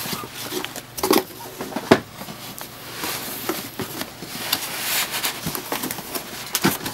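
Cardboard and paper packaging being handled, with a few sharp knocks in the first two seconds, the loudest about two seconds in, then a polystyrene foam tray scraping and rubbing against the cardboard box.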